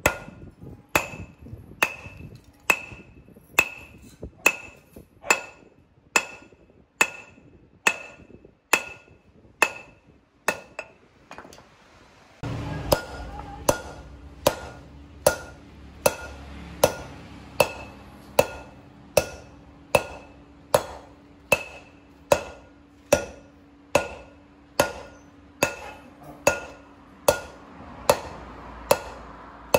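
Steady hand-hammer blows, about one a second, on a twisted steel bar being forged into a knife blade, each blow ringing off the anvil. A steady machine hum starts suddenly about twelve seconds in and runs on under the blows.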